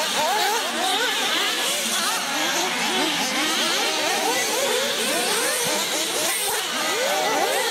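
Several radio-controlled off-road buggies running together, their small high-revving engines constantly rising and falling in pitch as they accelerate and lift off through the corners.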